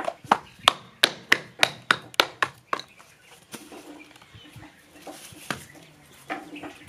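Wooden block knocking down on the upturned ends of a tied bundle of cardboard firecracker tubes, about three knocks a second, to tap the tube ends level. The knocking stops about three seconds in, followed by a few scattered knocks as the bundle is handled.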